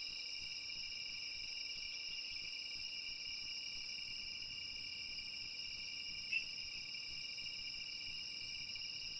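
Steady chorus of night insects such as crickets, a continuous high trill, with one brief louder chirp about six seconds in. No eruption sound is heard.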